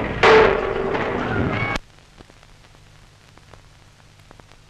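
Crowd cheering and applauding at a ship launch, loud for about a second and a half before it cuts off abruptly. After that only faint old film-soundtrack hum and crackle remain.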